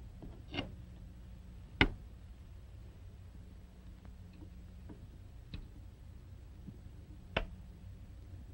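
A few light clicks and taps from handling a marking pen and small glassware at the bench, the loudest about two seconds in, over a faint steady hum.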